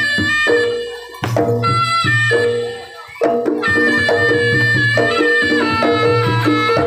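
Live Javanese jaranan ensemble music: drums and percussion under a melody of long held pitched notes, dropping off briefly about one and three seconds in.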